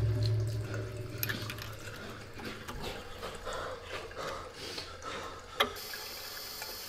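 Thin stream of water running from a bathroom basin tap into the sink, with a low hum fading out in the first second and a single sharp click a little past halfway. Near the end the running water settles into a steady hiss.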